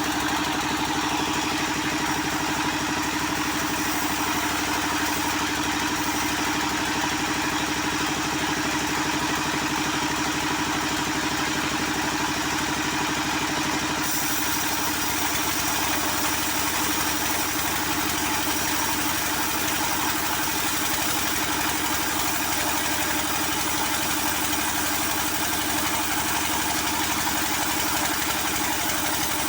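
Engine-driven wood saw running steadily while sawing coconut palm (glugu) wood, a constant mechanical drone. A brighter hiss joins about halfway through.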